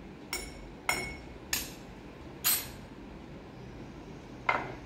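A metal spoon clinking against a steel bowl and glass five times, some clinks ringing briefly, while salt is spooned into a glass of water.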